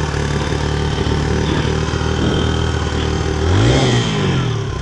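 Single-cylinder dual-sport motorcycle engine idling steadily just after it was cranked into life. About three and a half seconds in it gives one brief rev that rises and falls.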